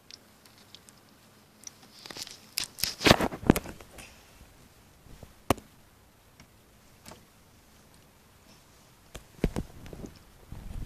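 Handling noise from a camera held indoors at a window: a cluster of sharp knocks and clicks about two to four seconds in, a couple of single ticks, then more knocks near the end.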